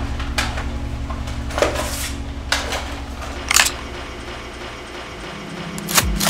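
Low, steady pulsing score that fades out near the end, with a handful of short handling clicks and rasps over it from a duffel bag and a pump-action shotgun being handled. The sharpest click comes about six seconds in.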